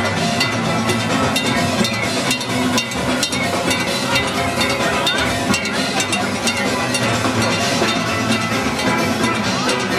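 Steel band playing soca on the road: steel pans carrying the tune over a steady beat of iron and drum percussion.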